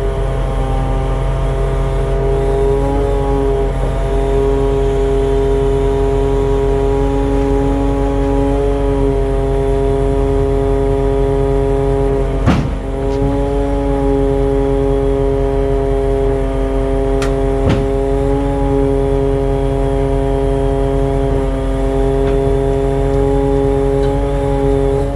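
Truck engine and the hydraulic drive of a truck-mounted loader crane running steadily as the crane lowers a cable drum, the pitch wavering slightly now and then as the crane is worked. A sharp click comes about halfway through and another a few seconds later.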